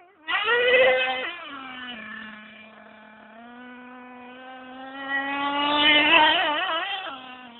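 Radio-controlled off-road racing car's motor revving. It jumps to a loud, high rev about a quarter second in, then drops to a steady hum. It revs up again with a wavering pitch around six seconds in and eases back near the end.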